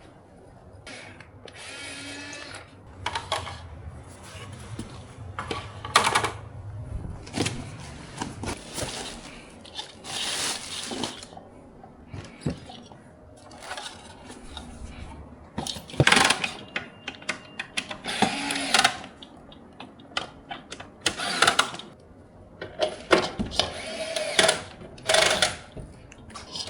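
Irregular clatter, clicks and short scraping bursts of tools and ceiling fan parts being handled, with a low hum during the first several seconds.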